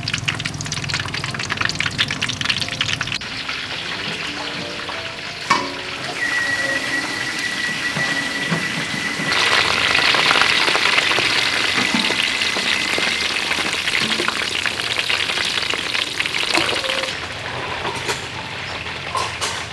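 Flour-battered blue crabs deep-frying in hot oil in a wok: a steady crackling sizzle, louder for several seconds in the middle. A single knock comes about five seconds in, and a thin steady high whine runs through the middle stretch.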